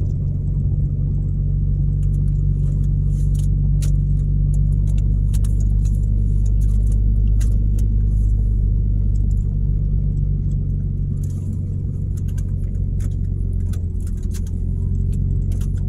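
Steady low drone of a vehicle's engine and road noise heard from inside the cabin while driving slowly, with scattered small clicks and rattles.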